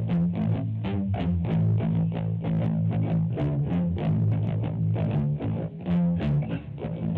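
Guitar played through a Peavey Vypyr VIP 2 modeling amplifier: a quick run of picked notes over sustained low notes, with no break.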